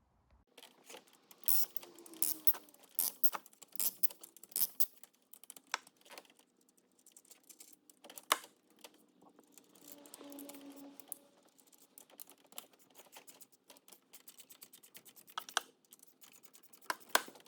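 Small irregular clicks, taps and plastic rattles of an engine wiring loom and its clips being worked loose by hand, thick in the first few seconds, sparser in the middle and picking up again near the end.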